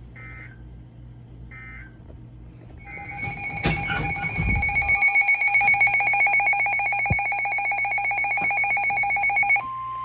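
Midland weather radio going into alert: two short electronic chirps, then from about three seconds in a loud, rapidly pulsing two-pitch alarm beeping, with a single dull thump soon after it starts. Near the end the beeping cuts off and the steady single-pitch NOAA Weather Radio warning tone takes over, marking the start of a severe thunderstorm warning broadcast.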